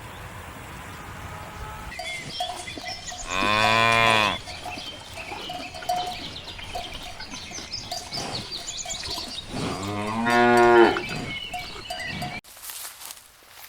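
A cow mooing twice, two long calls about six seconds apart, the second the loudest, over the light repeated clinking of cowbells. The sound drops off abruptly near the end.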